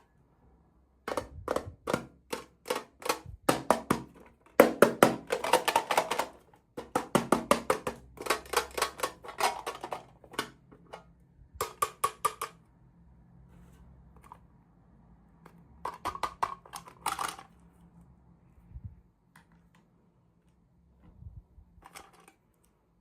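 Quick runs of clicks and rattles from toy packaging and small miniature pieces being handled during an unboxing. They come in several bursts through the first half, again about two-thirds of the way in, and once briefly near the end.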